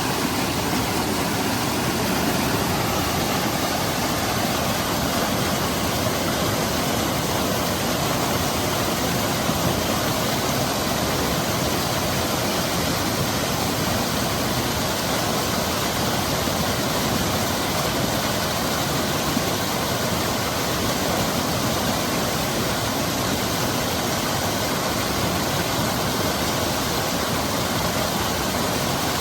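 Seasonal monsoon stream flowing over rocks and pebbles: a steady rush of water.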